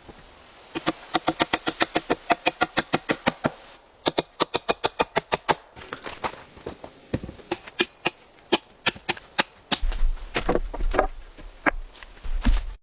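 Rapid, even chopping strikes, about five a second, in two runs of a few seconds each, then slower, irregular knocks.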